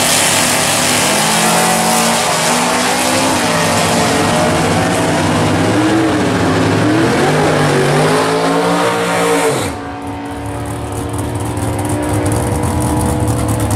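Two drag-racing cars, a 1950s Chevrolet and a first-generation Camaro in a stick-shift class, launch hard and run down the strip at full throttle. The engine pitch climbs and drops back with each gear shift. About ten seconds in, the sound falls off suddenly to a lower, steadier engine sound.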